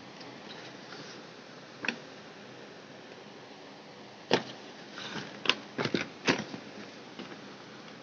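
Paper and cardboard packaging handled by hand: a few short crackles and taps, one just before two seconds in and a quick cluster from about four to six and a half seconds in, over a faint steady hiss.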